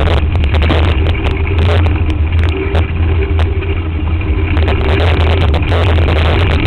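A steady low rumble and rattle picked up by a camera mounted on a mountain bike's front end as the bike rolls over a dirt trail, with frequent sharp clicks and knocks from bumps.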